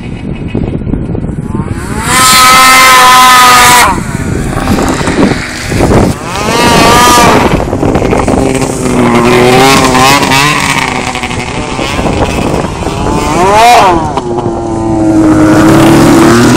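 Snowmobile engine revving in repeated bursts of throttle, its pitch rising and falling with each one. The loudest bursts come about two seconds in and again near the end.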